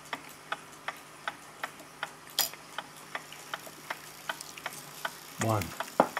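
Vintage pendulum wall clock movement ticking evenly, about two and a half to three ticks a second, its escapement running smoothly. Near the end there is a brief falling sound and then a sharp click.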